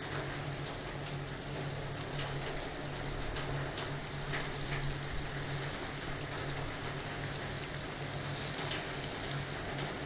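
Hot oil sizzling and crackling steadily around flour-coated Indian mackerel pieces shallow-frying in a pan, with a low steady hum underneath.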